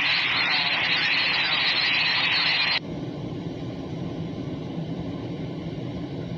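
Freight train rumbling past. A loud hiss sits on top of it for about the first three seconds, starting and cutting off suddenly.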